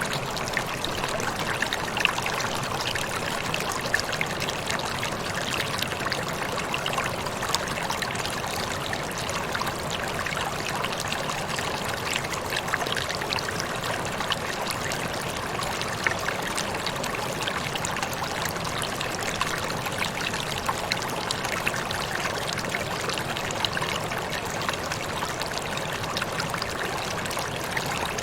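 Waterfall: a steady rush of falling, splashing water, with small splashes standing out here and there.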